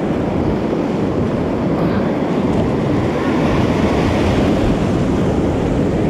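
Whitewater rapid rushing loudly around a kayak, the churning water close to the microphone as the boat runs through the waves. A dense, steady rush that swells a little past the middle.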